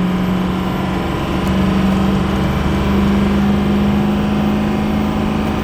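Ford 6.0L Power Stroke turbo-diesel V8 running at full throttle, its steady note rising only slowly. The truck is barely accelerating despite high boost, which the owner puts down to a malfunctioning variable-geometry turbo with a stuck unison ring.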